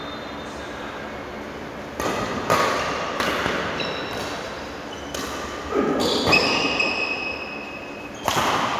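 Badminton rally: several sharp racket strikes on the shuttlecock, starting about two seconds in, echoing in a large hall, with short high squeaks of court shoes on the floor between the hits.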